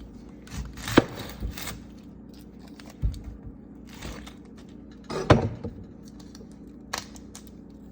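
Kitchen knife chopping an onion on a cutting board: a handful of separate, irregular knocks a second or two apart, over a steady low hum.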